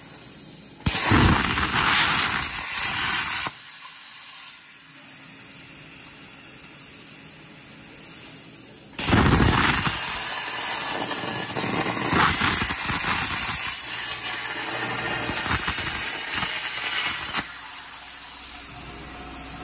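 CNC plasma cutter torch cutting steel plate: the arc's loud hiss runs for about two and a half seconds and cuts off, then starts again about nine seconds in and runs for about eight seconds before stopping suddenly. A quieter steady noise continues between the cuts.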